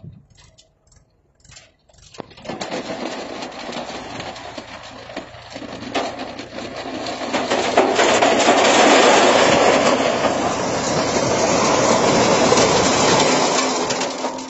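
Stones pouring out of a tractor-mounted stone picker's tipped steel hopper into a trailer: a dense rattling clatter that starts a couple of seconds in and grows loudest in the second half. The low steady hum of the tractor engine runs underneath.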